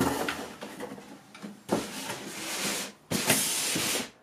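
Rustling, rubbing handling noise: a soft scuffle, then two longer hissing rustles about a second each, the second louder, before it cuts off.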